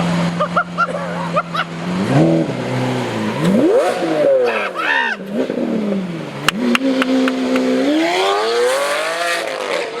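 2015 Lamborghini Aventador Roadster's V12 with a full IPE exhaust, idling and then revved several times. Each rev rises and falls in pitch, with sharp pops and cracks around the middle. The exhaust is very loud.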